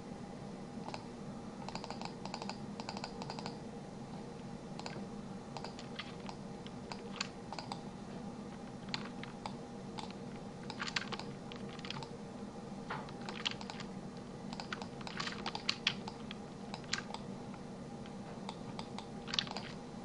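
Irregular clicks and taps of a computer keyboard and mouse, in scattered clusters, over a steady low hum.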